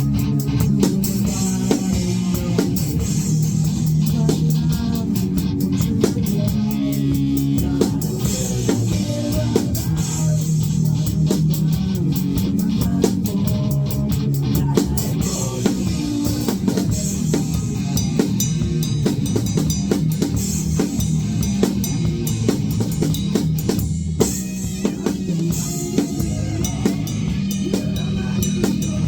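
Band playing an instrumental passage with drum kit, guitar and bass guitar, the drums driving a steady beat under sustained low guitar and bass notes.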